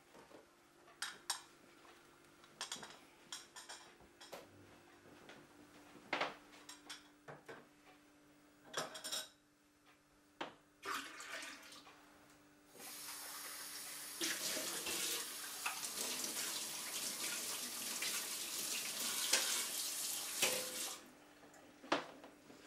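Dishes clinking and knocking at a kitchen sink, then a kitchen tap turned on about thirteen seconds in. The water runs steadily with more clatter under it for about eight seconds and is shut off abruptly.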